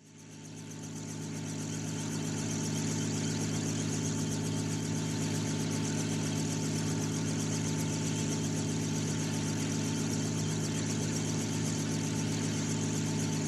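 An engine running steadily at a constant speed, fading in over the first couple of seconds.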